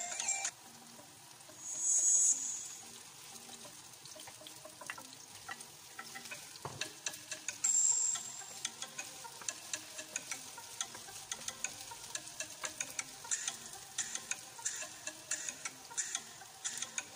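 Oil sizzling in a nonstick frying pan with sliced onion, garlic and bitter melon being stir-fried, a steady hiss with louder sizzling bursts about two seconds and eight seconds in. Many short clicks through the second half as a wooden spoon stirs the pan.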